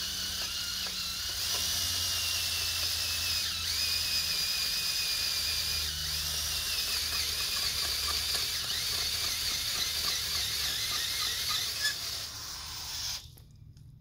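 Cordless drill spinning an auger bit into hard, rocky dirt: a steady high whine with scraping and grinding that cuts off suddenly about a second before the end. The bit is making little headway in the compacted soil.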